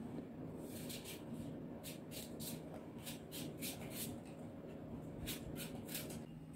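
Small knife slicing a peeled banana held in the hand: a run of faint, irregular clicks as the slices are cut, over a steady low hum.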